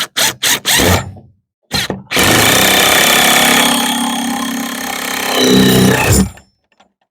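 Impact driver driving screws into wood: a few short trigger pulses, then a steady run of about four seconds that stops about six seconds in.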